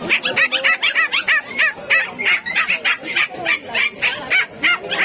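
Puppies yipping and whimpering: a fast, continuous run of short high-pitched cries, several a second.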